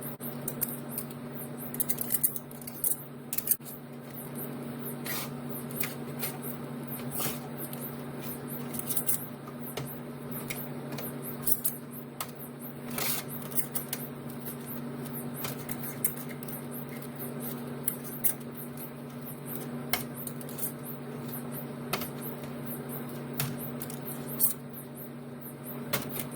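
Scattered small clicks and clinks of glass canning jars and their metal lids and bands being handled, some sharper than others, over a steady low electrical hum.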